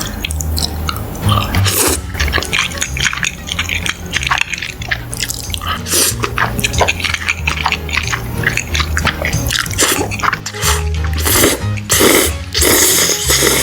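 Close-miked eating sounds: wet chewing, smacking and slurping in quick irregular clicks, over background music with a steady bass line. The eating grows louder near the end.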